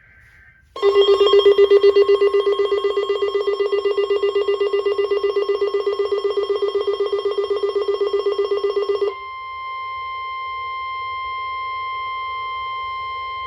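A weather alert receiver's alarm ringing in a loud, rapid pulse over the steady 1050 Hz NOAA Weather Radio warning tone. It is set off by the Special Marine Warning's alert header, whose last data warble fades out just before it. The alarm cuts off about nine seconds in, leaving the warning tone sounding alone.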